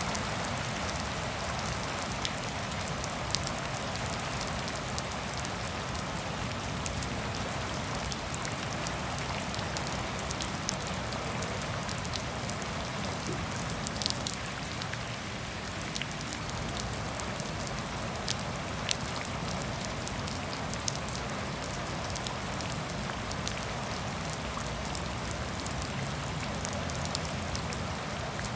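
Steady rain falling on wet grass, puddles and trees, with a scatter of sharp ticks from individual drops landing close by. No thunder.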